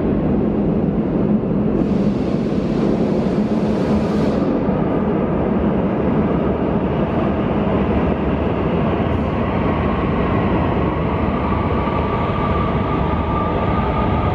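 CAF AS-2014 metro train running past through the tunnel: a steady, loud rumble of wheels on rail. A brief hiss comes about two seconds in, and a whine rises gently in pitch over the second half.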